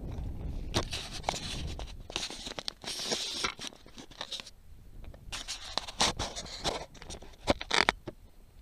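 Boots crunching and scraping over loose scree and broken rock, in irregular steps, with stones knocking together in a few sharp clacks near the end.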